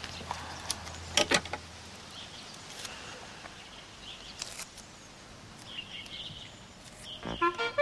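Outdoor background with scattered bird chirps. About a second in there is a short burst of crinkling and clicking as a paper plaster packet is handled in a first-aid box. Clarinet music starts near the end.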